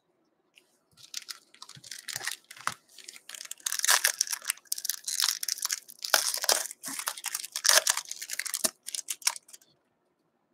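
Foil wrapper of a 2019-20 O-Pee-Chee hockey card pack being torn open and crinkled by hand. It is a long run of crackling tears and rustles that starts about a second in and dies away near the end.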